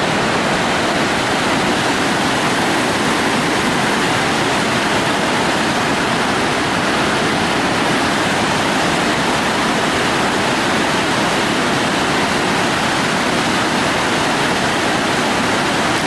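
Steady, loud rush of the Chaudière Falls and the whitewater rapids below them, a dense even roar of falling and churning river water.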